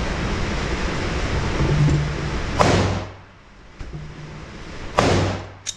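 Two handgun shots about two and a half seconds apart, each with a short echoing tail. A steady hiss runs before the first shot.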